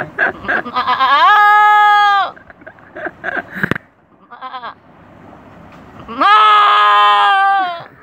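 A man imitating a goat's bleat with his voice. Two long bleats, each rising at the start and then held, come about a second in and again about six seconds in, with shorter choppy bleating cries between them.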